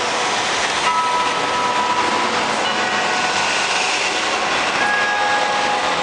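Wako clock tower's time-signal chime bells ringing out over the Ginza crossing, a new bell note struck every couple of seconds and each ringing on, over steady city traffic noise.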